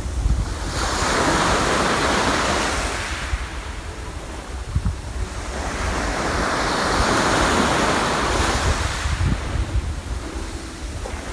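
Sea waves washing onto the shore, two long surges that swell and fade back, with wind buffeting the microphone as a low rumble underneath.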